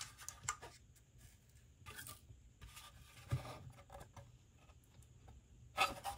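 Faint handling noise of a 3D-printed plastic hexagon organizer being turned in the hands: plastic rubbing and scuffing against skin with scattered light ticks. There is a soft thump about three seconds in and a louder scuff near the end.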